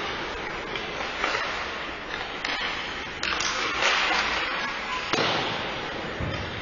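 Ice hockey play on a rink: skate blades scraping the ice and sticks and puck clattering, with a few sharp knocks.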